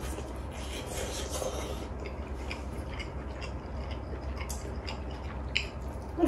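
A person slurping noodles for about two seconds, then chewing with scattered small clicks, over a low steady hum.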